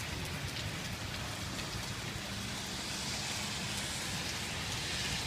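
Heavy rain falling steadily, a dense even hiss with scattered patter of drops on hard surfaces.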